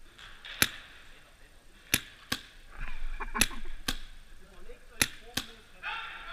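Paintball markers firing in a large hall: seven sharp pops, singly and in quick pairs, with a short echo after each.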